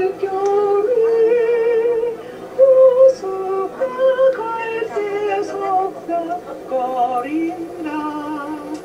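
Singing: a melody of held notes stepping up and down, with women's voices to the fore.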